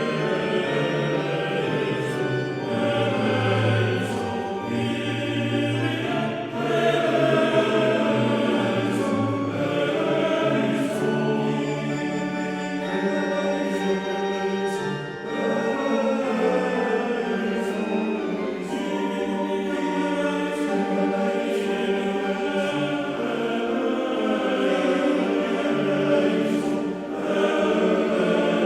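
Choral music: a choir singing sustained lines over an accompaniment, with a faint steady beat.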